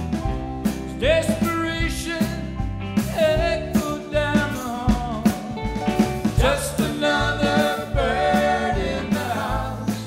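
Live rock band playing: drums, bass and electric guitars under a sung melody.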